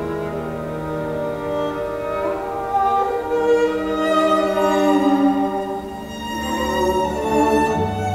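Classical string music played back over a hi-fi system driven by a Tonewinner AD-99D integrated amplifier: violin and cello holding slow, sustained notes.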